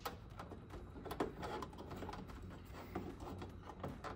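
Hands working plastic tube fittings on an Epson 7890 printer's air pressure pump, making irregular light clicks and taps as the lines are worked loose.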